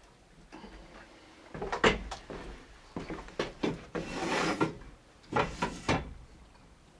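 Several separate knocks and clunks, with a short scraping rustle in the middle.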